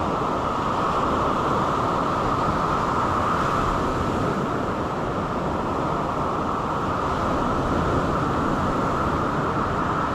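Steady rushing noise of sea surf and wind on the microphone, even throughout with no distinct splashes or breaks.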